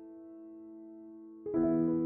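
Background piano music: a held chord slowly dies away, then a new, louder chord is struck about one and a half seconds in.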